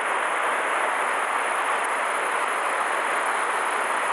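Steady rushing of a river running high after a typhoon, an even hiss-like wash of water that does not change.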